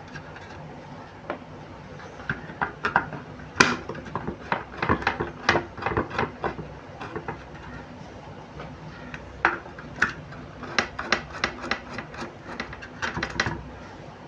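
Small screws being undone with a screwdriver on an LED flood light's metal housing: irregular clicks and scraping, with a quicker run of clicks in the last few seconds.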